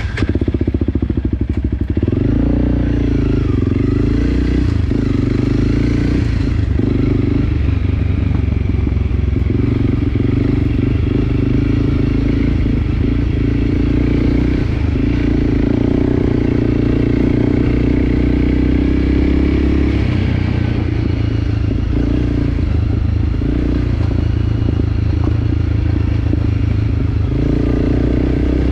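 Enduro dirt-bike engine running continuously under load as the bike is ridden along a trail. The engine note eases about twenty seconds in and picks up again near the end.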